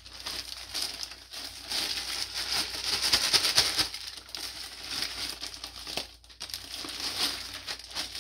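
Plastic bag crinkling and rustling as clothing is pulled out and handled, in a near-continuous crackle with a short lull about six seconds in.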